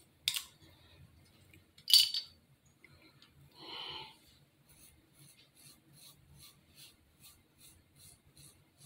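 Disposable razor shaving underarm hair through shaving cream: a run of short, quick scraping strokes, about three a second, in the second half. Before that come two sharp clicks as the razor is handled.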